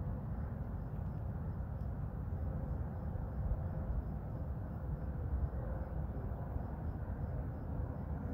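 Wind from an oncoming dust storm rushing and rumbling across the microphone, a steady low roar that rises and falls only slightly.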